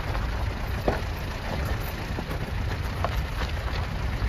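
A vehicle's engine and tyres rumbling steadily while it drives on a gravel road, with a few light knocks and rattles.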